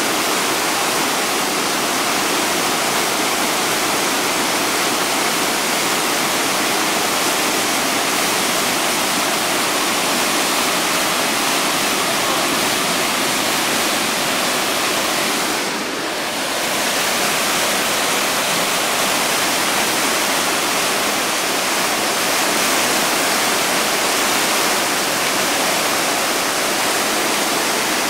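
Whitewater rapids of a river in high water, rushing steadily, with a brief dip in level a little past halfway.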